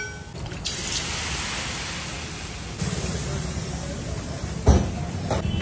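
Water hissing and sizzling into steam on a hot iron dosa griddle (tawa) as it is wiped down, the usual way of cooling and cleaning the griddle before batter goes on. The hiss fades after about two seconds, and a single sharp thump comes near the end.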